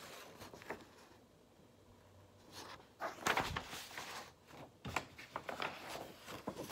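A large stamp sheet rustling as it is handled and flipped over, in several short bursts.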